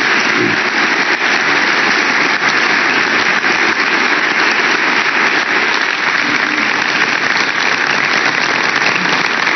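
Audience applauding: a steady, unbroken round of clapping from a large crowd.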